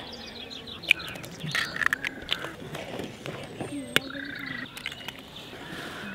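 Birds chirping, with sharp knocks of cooking utensils against a pot: one about a second in and a sharper one about four seconds in.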